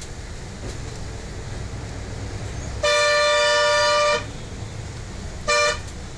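Vehicle horn honking in traffic: one long honk of over a second, then a short toot about a second later, over the low rumble of the vehicle driving.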